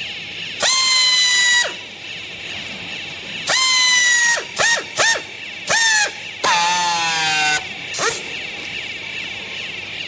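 Handheld power strapping tool tensioning green plastic strap around a baled clothes bundle: a high motor whine in about six bursts, each sagging in pitch as it stops, the longest and buzziest a little past the middle.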